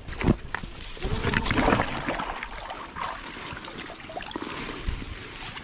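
Rustling and scuffling of grass and clothing close to the camera, loudest about a second or two in and then easing off.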